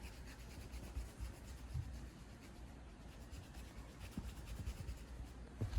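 Faint rubbing and scuffing, with a few soft low thumps.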